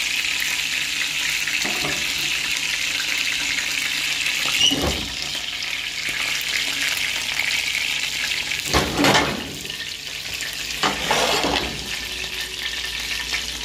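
Chicken pieces sizzling steadily in hot oil in a frying pan while being browned, the sizzle easing a little after about five seconds. A few short knocks of utensils and pots come over it, the loudest about nine seconds in.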